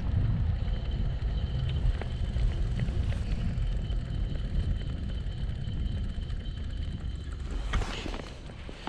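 Road and wind rumble as a Brompton folding bike rolls along a tarmac road, with a brief clatter near the end as its wheels cross a cattle grid.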